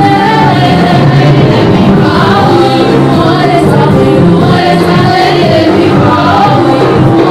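Gospel praise song: several women singing together into microphones, amplified, with keyboard accompaniment.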